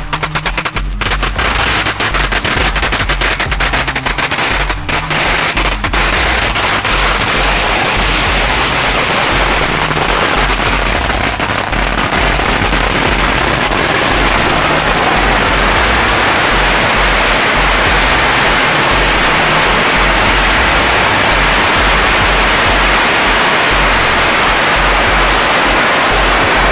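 Thousands of firecrackers going off together in rapid, overlapping bangs. After about six seconds the separate reports blur into one continuous, loud crackle.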